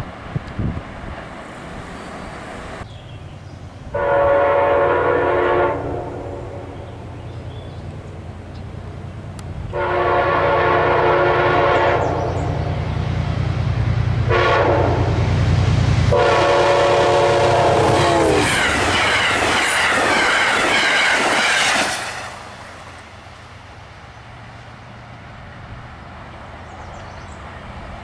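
Amtrak passenger train approaching at high speed and sounding its multi-tone air horn in three long blasts over a low rumble. The last blast drops in pitch as the train goes by, followed by a loud rush of the passing cars that then fades away.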